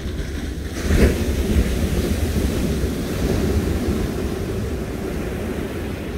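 Sea surf breaking and washing up the beach, with a surge about a second in as a wave crashes, then easing off. Wind buffets the microphone, adding a low rumble.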